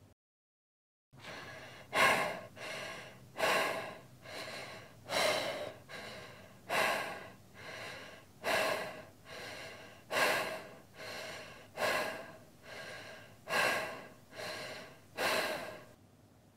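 A person breathing hard and fast in a steady rhythm. Each cycle is a sharp, loud gasp in followed by a quieter breath out, about one cycle every second and a half to two seconds. The breathing begins after about a second of silence.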